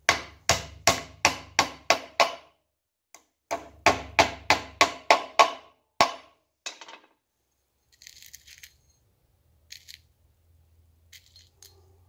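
Small ball-peen hammer driving nails into a wooden birdhouse: two runs of about seven quick blows, roughly three a second, with a short pause between. A single sharp blow follows about six seconds in, then only faint light clinks and taps.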